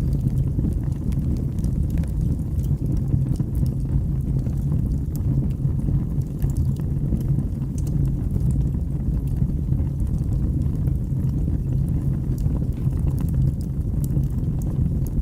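Wood fire burning in a fireplace: a steady low rumble with scattered sharp crackles and pops.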